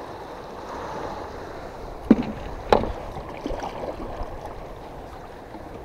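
A wooden paddle working in river water beside a small boat: a steady rush and slosh of water, with two sharp knocks about two seconds in, the second just over half a second after the first.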